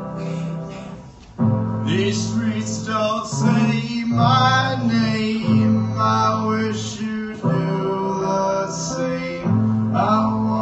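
Live band playing: sustained keyboard chords and a strong bass line, with a voice singing over them. The music thins out briefly about a second in, then comes back in full.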